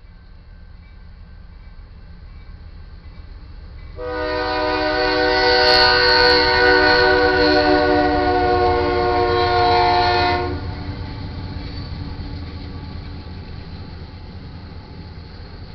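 Air horn of a GE Dash 9-44CW diesel locomotive sounding one long chord, starting about four seconds in and cutting off sharply about six and a half seconds later as the train reaches the crossing. Under it, and after it, the low rumble of the locomotive and the crude oil tank cars rolling by.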